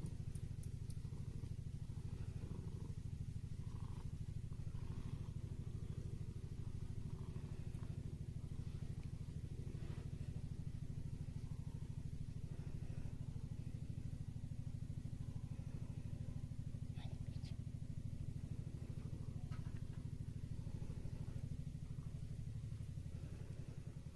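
Domestic cat purring steadily in a low, fast, even rumble that dies away at the very end.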